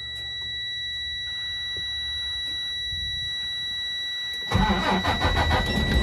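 Detroit Diesel DD16 inline-six diesel cranking with a low rumble for about four and a half seconds, then catching and running loudly; the start shows the no-crank/no-start fault, an offline motor control module, is cured. A steady high-pitched warning tone sounds throughout.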